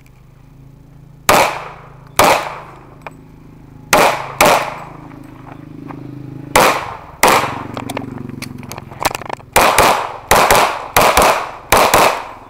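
A 1911 pistol fired about a dozen times in rapid pairs, with short pauses between the pairs as the shooter moves to new targets. Each shot is loud and sharp, with a brief echo.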